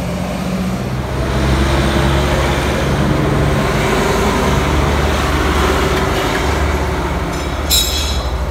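Forklift engine running with a steady low drone, picking up revs about a second and a half in as the machine moves. A brief hiss comes near the end.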